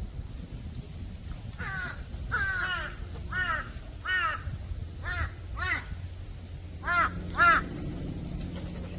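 Crows cawing: about nine hoarse caws, some single and some in quick pairs, the loudest pair near the end.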